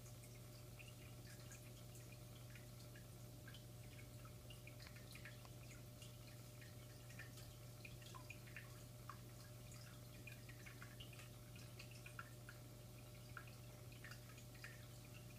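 Faint, irregular water drips and trickles in an aquarium tank over a low steady hum.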